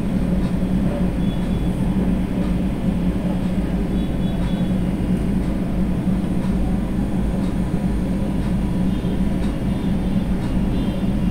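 Steady low hum and rumble in the kitchen, with faint scraping as a silicone spatula stirs pieces of beef liver through masala in a karahi.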